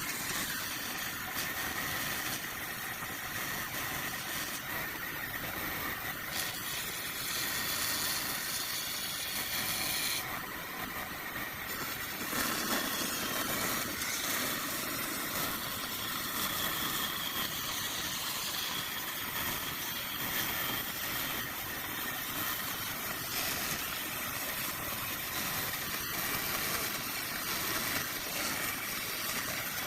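Woodworking power tool motor running steadily with a high whine.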